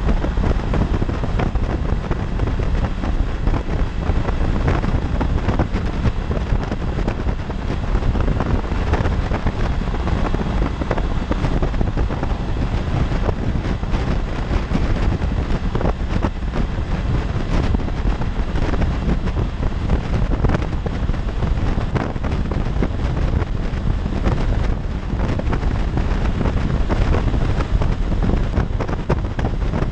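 Steady wind rush buffeting the microphone of a motorcycle riding at freeway speed, with the 2016 Honda CB500X's engine and road noise running underneath.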